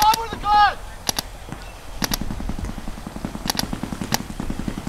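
Paintball markers firing: sharp pops, several in quick pairs, and from about two seconds in a fast continuous rattle of rapid fire. A shout trails off at the start.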